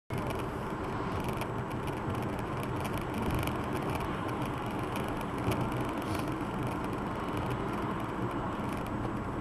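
Steady engine and road noise of a car driving, heard from inside the car, with faint light ticks over it.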